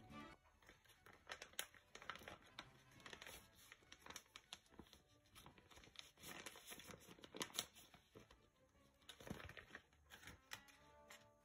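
Faint crinkling and rustling of a thin plastic bag with scattered sharp crackles, as frozen coconut flesh is shaken out of the bag into a bowl.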